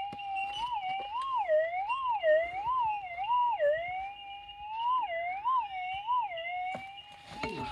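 Minelab GPX 6000 gold detector's steady threshold tone, warbling up and down in pitch about ten times as the coil is swept back and forth over a buried target, then settling back to the flat hum near the end. This is the detector's target signal over the scraped ground.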